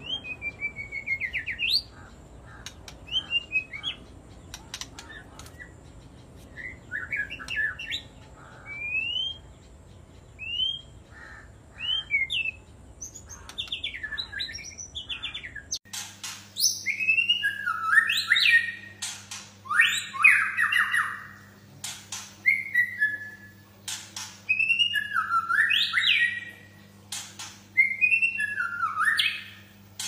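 Caged white-rumped shamas (murai batu) singing in quick, varied whistled phrases of rising and falling notes. About halfway through, a second, louder bird takes over, its song mixed with sharp clicks and set over a faint low hum.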